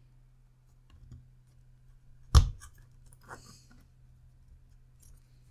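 Small electronic parts being handled and fitted by hand: faint ticks, then one sharp knock on the desk about two seconds in and a softer click with a brief rustle a second later, over a low steady hum.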